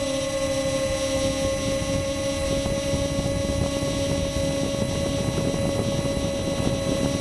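Ladybird micro quadcopter's small motors and propellers running steadily in flight, picked up by the keychain camera riding on it: a steady whine with a rough, crackling rustle underneath.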